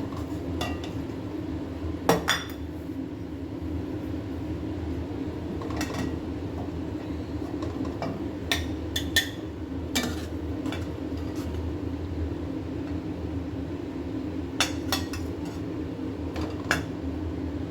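Kitchen dishes and utensils clinking and knocking: about ten sharp clinks at irregular intervals, over a steady low hum.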